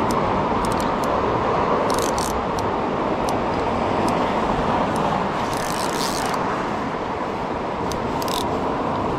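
Steady rushing of the creek flowing under the bridge. A few brief rustles come from handling the spinning rod and reel while playing a hooked fish, one about two seconds in and a longer one around the middle.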